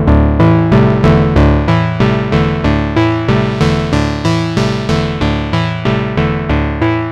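Moog Subharmonicon analog synthesizer playing a sequenced, looping pattern of low stepped-pitch notes, about three a second, each starting sharply and decaying. Its tone brightens and dulls as the low-pass ladder filter's cutoff is turned.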